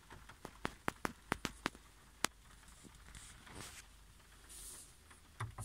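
Scattered raindrops ticking on a car's roof and windscreen, heard from inside the cabin: a quick run of sharp, separate ticks in the first couple of seconds, then a couple more near the end.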